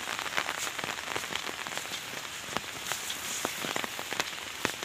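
Steady rain, with many separate drops ticking on a fabric umbrella held just overhead.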